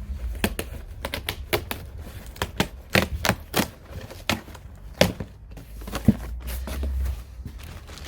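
Irregular sharp clicks and light knocks, a dozen or more spread over several seconds, from handling a bike's front handlebar carry bag and its fittings.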